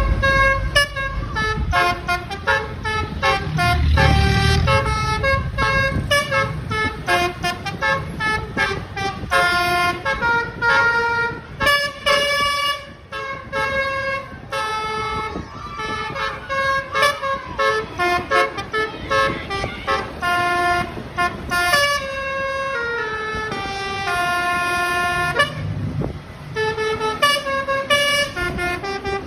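Telolet bus horn, a multi-trumpet air horn, playing a fast tune of short stepped notes. A low engine rumble rises under it now and then.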